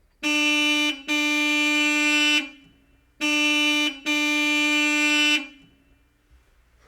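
Car horn honking: a short toot followed by a long blast, then the same short-long pattern again, a single steady pitch with a bright, buzzy tone.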